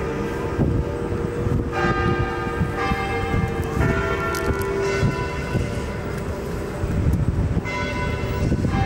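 Bells ringing, fresh strikes every couple of seconds each leaving long, slowly fading tones, over a low rumbling outdoor noise.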